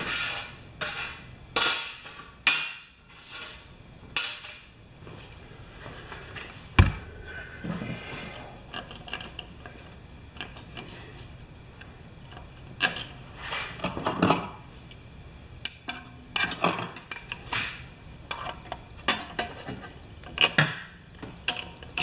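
Hand tools and metal engine parts clinking and knocking during disassembly of a small generator engine: scattered light clicks and rattles in small clusters, with one sharp knock about seven seconds in.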